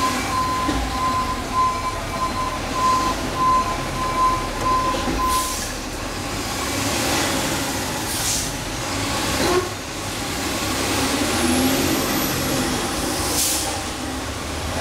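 Steady background vehicle noise, with a repeating high beep through roughly the first five seconds and several short hisses later.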